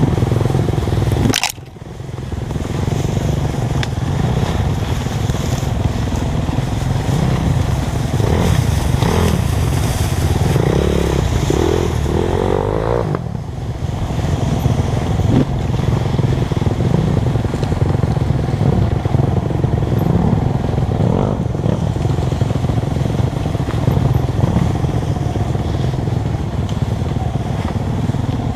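Dirt bike engine running, its revs rising and falling as it is ridden. It briefly drops out about a second and a half in.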